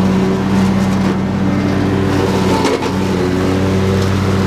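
Husqvarna YTH22V46 lawn tractor's V-twin engine running steadily, the mower deck cutting through tall grass and brush, with one brief knock a little past halfway.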